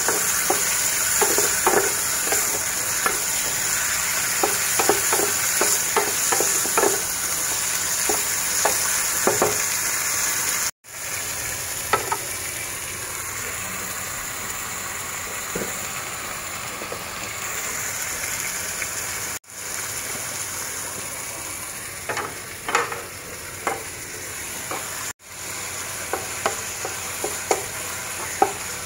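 Sliced pork, onion, garlic and green chili sizzling in a pan, with a spatula scraping and clacking against the pan as the food is stirred. The stirring clicks come thick and fast in the first ten seconds, then only now and then; the sizzle drops a little in level after about eleven seconds.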